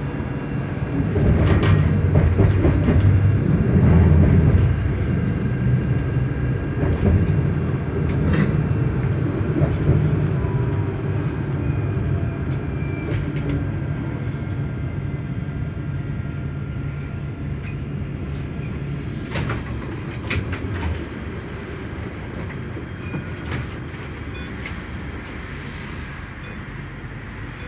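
Interior running noise of an Alstom Citadis tram: a steady low rumble of wheels and traction with a faint whine and scattered clicks and rattles. The rumble is loudest in the first ten seconds and then gradually quietens as the tram slows.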